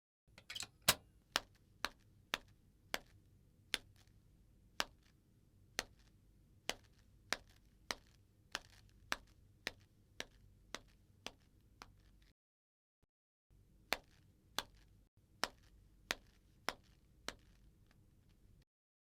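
Footsteps of a woman walking in chappals (flat sandals), each step a sharp slap of sole on a hard floor, at a little under two steps a second. The steps stop for about a second midway, then carry on.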